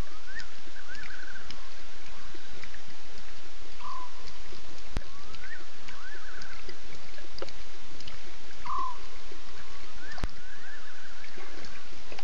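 An animal calling repeatedly, about every four seconds: a short falling note, then a rising note that runs into a quick warbling trill, over a steady hiss. Two sharp clicks sound about halfway through and near the end.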